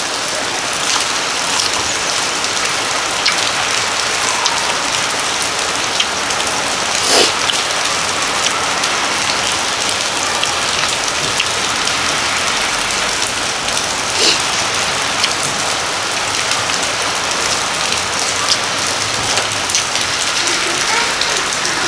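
Steady rain falling, heard from under a roof: an even hiss with a couple of sharper taps of drops standing out about a third and two thirds of the way through.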